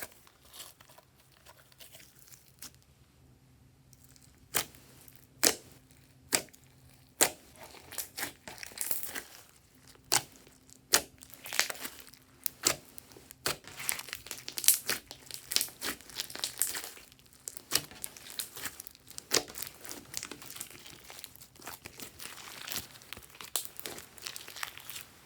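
Hands squeezing, stretching and poking glossy slime: sticky crackling broken by a string of sharp pops and clicks.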